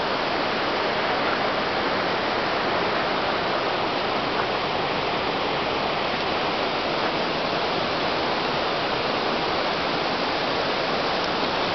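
Steady, even rushing noise of fast-flowing water.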